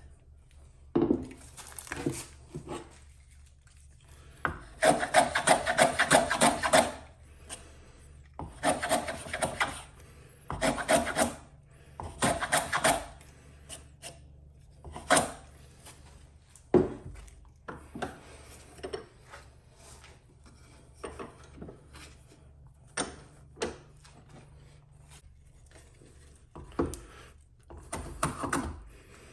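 Hand plane strokes on a white pine board, a series of irregular scraping passes of up to about two seconds each, with short knocks of wood and tool between them.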